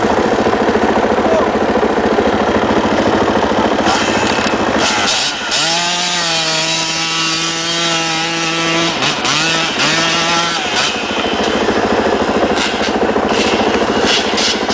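Quad bike (ATV) engines running hard with a raspy note. About five seconds in, one engine revs up and holds a high steady pitch for about three seconds, then revs twice more briefly.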